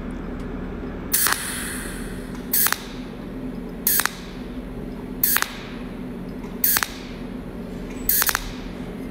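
Cold welding machine firing its arc in six short pulses, about one every second and a half, each pulse a brief hissing zap that lays one weld spot. A steady low hum runs underneath.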